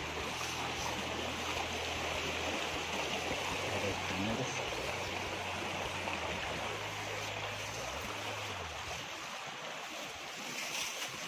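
Steady rushing of a river running high: a continuous even hiss of water. Underneath is a low steady hum that stops about nine seconds in.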